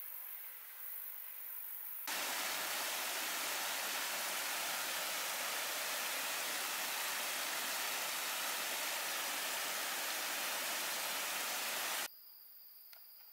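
Steady rushing of stream water, cutting in abruptly about two seconds in and cutting off suddenly near the end. Fainter steady high insect trilling follows once it stops.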